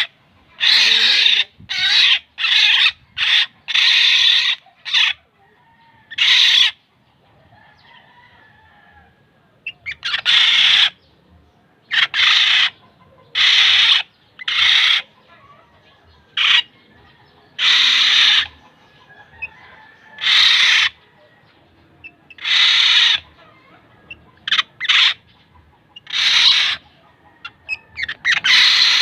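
Black-naped oriole giving repeated harsh calls, each under a second long, in irregular runs with a pause of a few seconds near the start.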